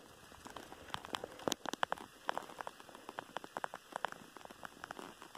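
Irregular light crackling clicks, scattered unevenly through the whole stretch over a faint hiss.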